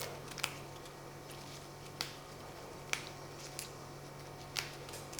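Faint, sharp clicks and light taps of kitchen handling, five or so spread over a few seconds, over a steady low hum.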